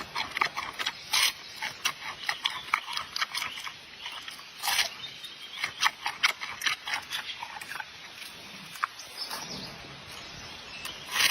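Giant panda eating bamboo: a string of irregular crunches and sharp cracks as the stalks are bitten and chewed.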